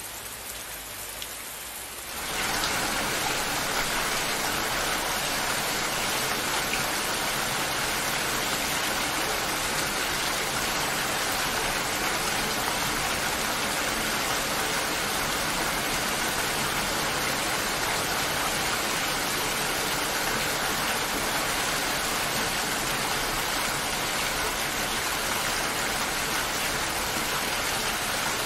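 Steady rain falling, a constant patter with no other sounds. About two seconds in it becomes suddenly louder and fuller, then holds steady.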